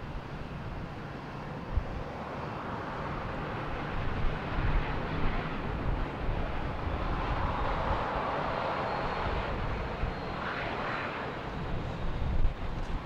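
Twin rear-mounted GE CF34 turbofans of a Bombardier CRJ regional jet rolling along the runway: a steady jet roar that swells as the jet passes, loudest about two-thirds of the way through, with a faint high whine over it.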